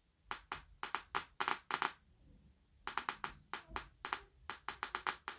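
A quick series of sharp clicks, in two runs: about six in the first two seconds, then after a pause about ten more.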